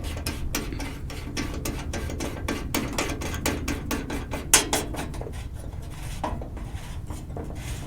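Light metal clinks and taps as a sheet-metal core support filler panel and its hood stop bolt are handled and fitted by hand, with one sharper knock about four and a half seconds in.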